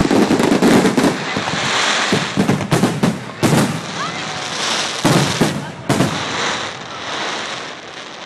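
Aerial fireworks bursting: a dense crackle of glittering stars runs throughout, broken by several sharp bangs in the middle, and it dies down near the end.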